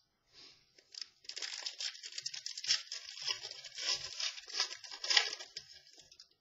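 Trading-card pack wrapper crinkling as it is torn open and handled, a dense crackle of about four seconds after a few light clicks.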